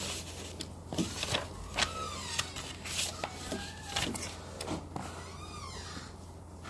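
Plastic toy-track pieces being handled and fitted together: irregular clicks and knocks, with a few short squeaky glides as parts rub.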